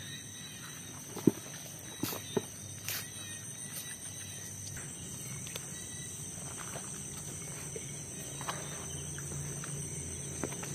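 Night insect chorus: steady high-pitched trilling that runs on unbroken, with a few sharp knocks in the first three seconds.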